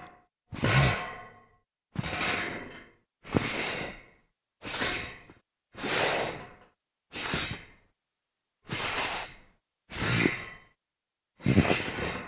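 A series of slides across a metal grate: about ten separate scraping strokes, each under a second long, starting loud and fading out, with short silences between them.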